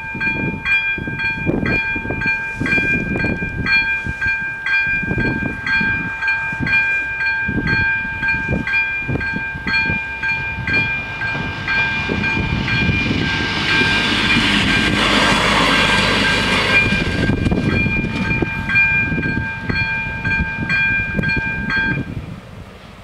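AŽD 97 level-crossing warning bell ringing at about two strokes a second, warning that a train is due or passing. A train's noise swells and fades in the middle, and the bell stops shortly before the end as the crossing clears.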